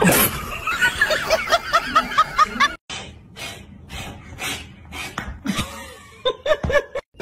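High-pitched rapid laughter for the first few seconds. After a short break, scattered bursts of laughter follow.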